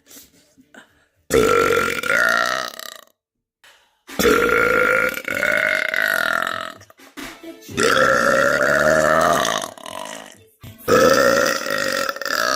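A woman burping loudly on purpose: four long burps in a row, each two to three seconds, with a steady pitch that sags toward the end.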